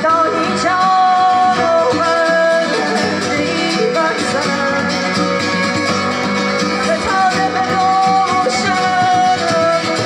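Live acoustic band music: a violin melody over strummed guitar and other plucked strings, with a djembe and singing.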